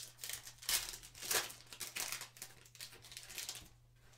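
Trading card pack wrapper being torn open and crinkled, with a burst of loud rustling about a second in, then softer rustling that stops near the end.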